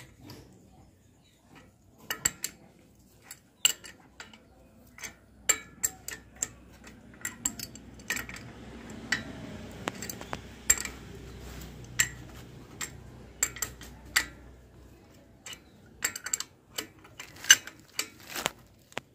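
Spanner clinking and clicking against the steel nuts and bolts that clamp an electric motor's flange to a gearbox, as they are tightened by hand: many sharp, irregular metal clicks.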